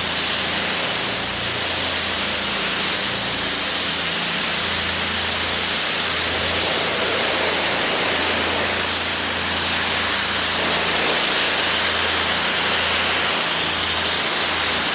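High-pressure water jet from two Kranzle pressure washers coupled together, spraying onto garage floor tiles: a steady loud hiss with a low hum underneath.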